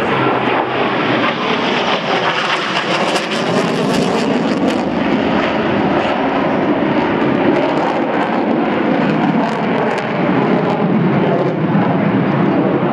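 Jet noise of an F/A-18 Hornet's twin turbofan engines as the fighter flies a square loop in a display: a loud, steady rushing noise with a crackling edge from about two to five seconds in.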